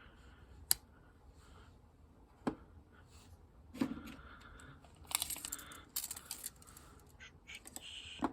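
Sharp snaps and clicks from a Tidioute Big Jack slipjoint pocket knife's blades being opened and closed against the backspring, single clicks a second or two apart with a quick run of clicks in the middle.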